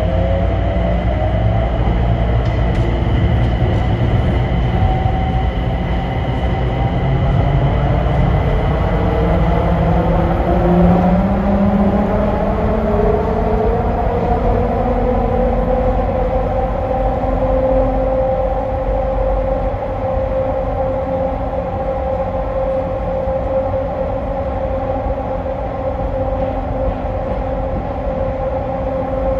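The Washington Dulles AeroTrain, a rubber-tyred automated people mover, accelerating away from a station into a tunnel. Its drive whine rises in pitch for the first eighteen seconds or so, then holds one steady tone at running speed over a steady rumble.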